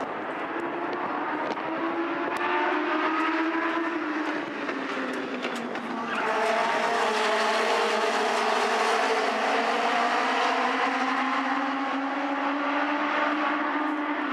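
A pack of Legends race cars with Yamaha motorcycle engines racing past, many engines at high revs, their pitches rising and falling over one another. The sound gets louder about six seconds in as the pack comes closer.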